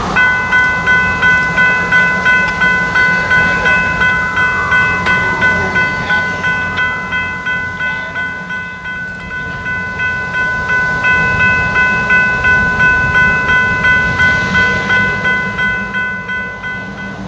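Diesel locomotive's bell ringing steadily, about two and a half strikes a second, as the locomotive moves slowly forward. The low rumble of its diesel engine runs underneath.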